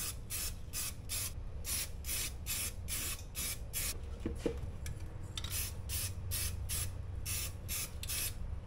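Aerosol spray paint can spraying in short, quick bursts, about three or four a second, with a pause of about a second near the middle.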